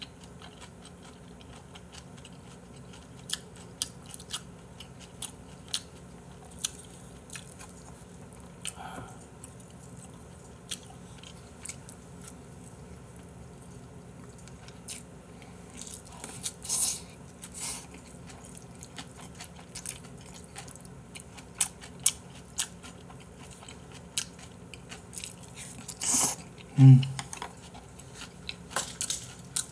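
Close-miked eating sounds of a man chewing beef tripe hotpot: scattered small wet clicks and smacks of chewing. Near the end comes a louder noisy burst, like a slurp, followed by a short low hum.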